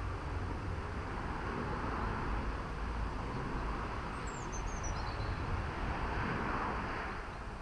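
Steady outdoor background noise with a low, fluctuating rumble that swells a little twice, and a short high chirp falling in pitch about four seconds in.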